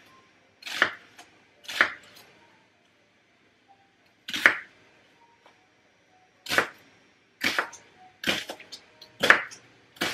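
Chef's knife slicing an onion on a wooden cutting board: about nine single knife strikes against the board, unevenly spaced, with short pauses between cuts.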